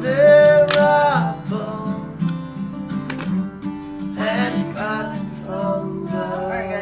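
Background music: a song with acoustic guitar and singing.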